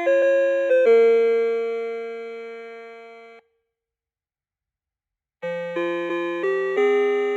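Electronic melody tones from an ELGIN melody clock. One tune ends on a long held note that fades and cuts off about three and a half seconds in. After about two seconds of silence, the next tune begins with a quick run of notes.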